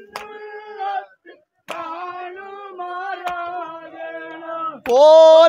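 Vanchipattu, the Kerala snake-boat song, sung by a group of voices in long held notes, with a sharp beat about every second and a half. The singing drops out briefly about a second in and comes back, then swells louder near the end as more voices join.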